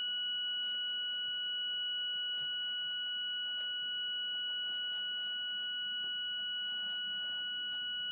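Handheld electronic stud detector giving a continuous, steady beep: its signal that it is over the edge of a stud or other object behind the plaster.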